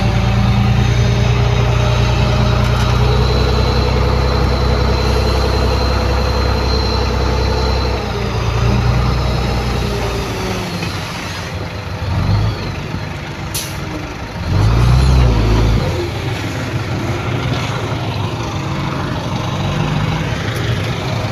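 Heavy diesel earthmoving machinery working: a loud, low engine sound with a steady whine over it for about ten seconds, then dropping off. About two-thirds of the way through there is a short sharp hiss, then a brief surge of engine, and quieter machine noise after that.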